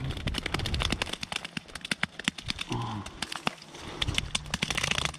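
Close, crackly handling noise: hands working a landing net and a small fish in dry grass and earth, a rapid irregular string of clicks, scrapes and rustles.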